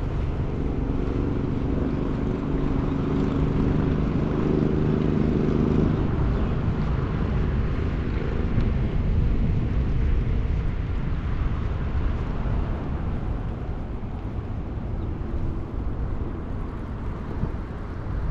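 A motor's hum, several steady tones together, over roughly the first six seconds, then fading away, above a steady low outdoor rumble.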